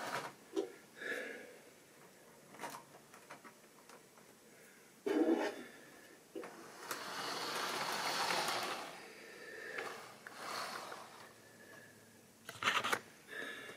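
Model railway locomotive running on sectional track: the whirr and rumble of its motor and wheels rises and fades, with scattered clicks as the wheels cross rail joints and points, a thump about halfway, and a short louder clatter near the end.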